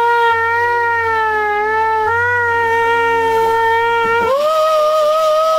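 Power sanding or grinding tool running on the steel rocker panel, a steady high whine over a low rumble; about four seconds in the whine steps up in pitch and the rumble drops out.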